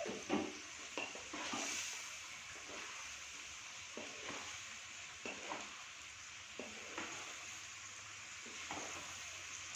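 Food frying in a hot pan, sizzling steadily, while a spatula stirs it with scattered scrapes and clinks against the pan.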